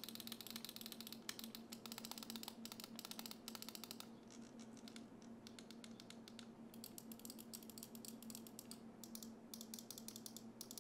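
Faint, rapid clicking of the G-Wolves HTX 4K wireless mouse's main buttons on Zippy 60M switches, in quick runs with a sparser lull around the middle.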